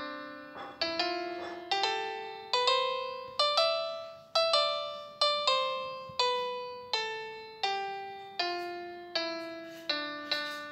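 Background piano music: single notes played one after another, each ringing and fading, in a slow melody that climbs and then falls back.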